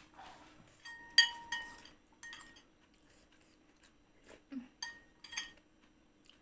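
Metal spoon clinking against a ceramic soup bowl several times while eating; the loudest clink, about a second in, rings briefly.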